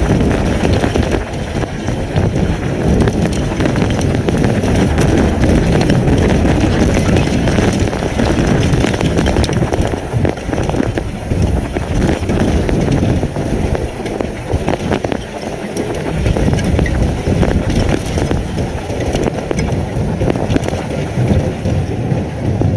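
Derecho winds buffeting an outdoor webcam's microphone, a loud rush heaviest in the low end that surges and eases, with many sharp ticks of wind-driven hail and rain striking the camera.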